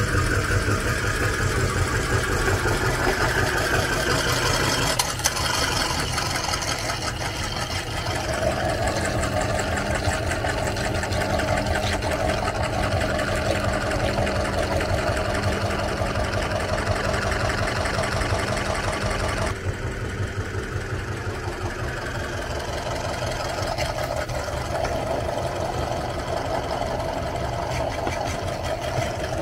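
Meat grinder running steadily while it grinds bananas through its plate, a continuous mechanical drone with a fast chugging pulse. The tone changes abruptly a few times.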